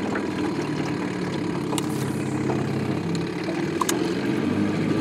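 Small outboard motor running steadily at low speed, with a few light clicks over it.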